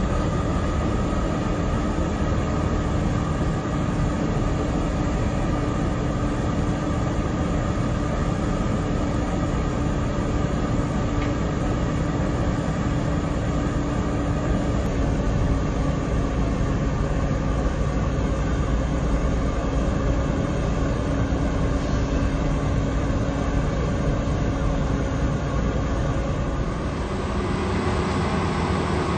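Industrial machinery running with a steady, loud noise and a constant hum. The hum shifts slightly about halfway through and changes pitch again near the end.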